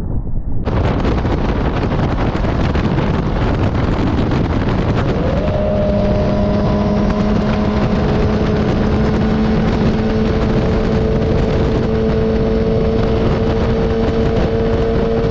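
Yamaha YZF-R6 inline-four sport bike engine running at highway speed, heard together with rushing wind. About five seconds in the engine note rises briefly, then holds a steady pitch.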